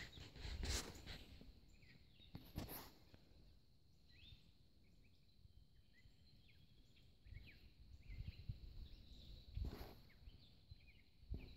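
Faint outdoor ambience with scattered short bird chirps, and a few brief rustles and thumps near the start and end.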